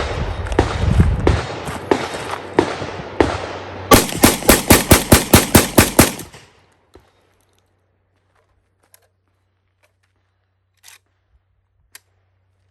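SDS Lynx 12-gauge semi-automatic shotgun firing, first a string of spaced shots, then about a dozen shots in quick succession over two seconds. Afterwards only a few faint shots from elsewhere on the range.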